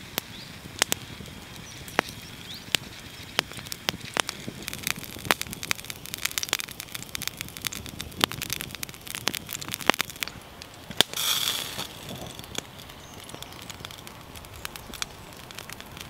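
Wood campfire crackling, with sharp pops scattered irregularly and thickest in the middle. There is one brief hiss about two-thirds of the way through.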